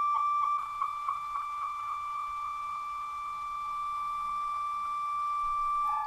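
A steady, high electronic tone played through a phone speaker, with a slight wavering at first. It switches to a lower tone right at the end.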